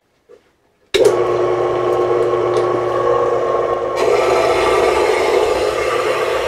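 King Canada portable metal-cutting bandsaw switched on about a second in and running steadily with a motor hum; about four seconds in the sound turns harsher as the blade starts cutting into a rusty steel air-brake S-camshaft.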